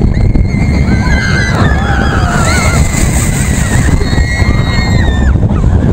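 Roller coaster riders screaming: several long, high, wavering screams overlap over heavy wind buffeting on the ride-mounted camera microphone.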